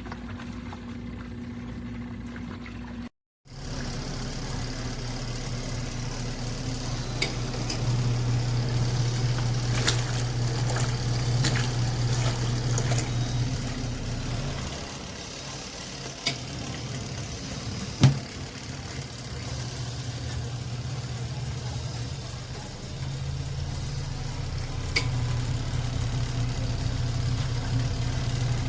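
Small portable twin-tub washing machine running: a steady motor hum with water sounds, louder for a stretch in the middle. A few sharp clicks, the loudest about 18 seconds in.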